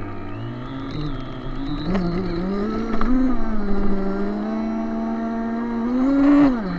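Motor of a radio-controlled model speedboat in a scale Yamaha 250 outboard, running under throttle with water rushing past the hull. Its pitch climbs about two seconds in and holds, then rises again near the end before dropping as the throttle comes off.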